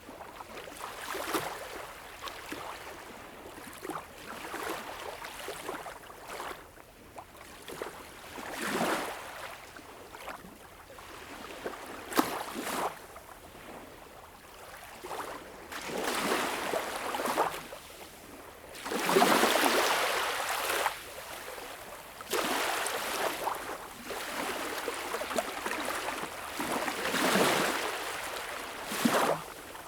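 Small waves lapping and washing onto a beach shore, each one rising in a hiss and fading, with the fullest washes coming past the middle.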